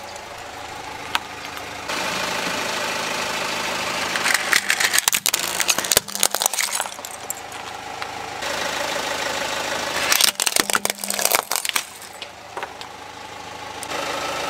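Car engine idling steadily while a tyre rolls over and crushes small plastic objects on concrete, with two spells of crunching and snapping, a few seconds in and again about ten seconds in.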